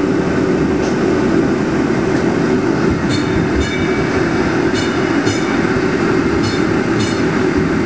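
Muni PCC streetcar 1159 under way, heard from inside the car: a loud, steady running noise with a constant low hum, and a few sharp clicks over the middle few seconds.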